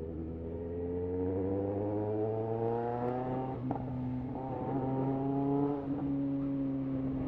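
Yamaha XJ6 motorcycle's inline-four engine accelerating, its pitch climbing. It drops at a gear change about halfway through, then climbs again and levels off.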